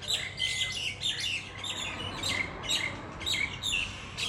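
Lovebirds chattering: a steady run of short, high-pitched chirps and squawks, about three a second, some overlapping.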